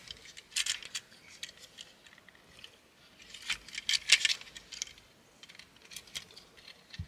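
Scattered clicks and light clatter of the hard plastic parts of an Ocular Max PS-25 Navigant transforming robot figure as it is handled and its pieces are pushed and tabbed into place. The clicks come in a few small clusters, about half a second in, around three and a half to four seconds, and near six seconds.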